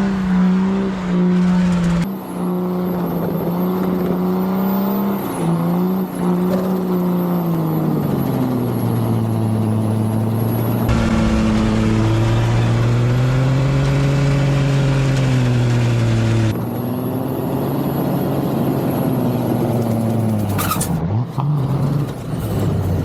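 Car engine held at high revs during a burnout, spinning the tires. The engine note sags about a third of the way in and then wavers up and down under load.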